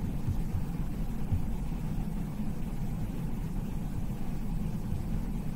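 Steady low rumble of background noise with small irregular low thumps, and no speech.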